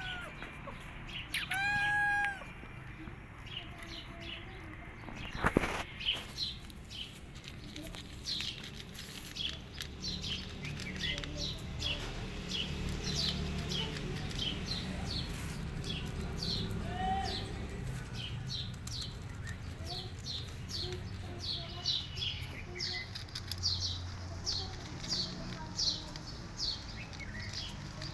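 A cat meows once about two seconds in, and a sharp click follows a few seconds later. After that, small birds chirp rapidly and repeatedly, several short high chirps a second.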